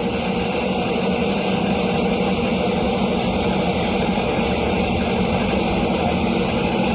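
A machine running steadily, a constant mechanical noise with a low, even hum.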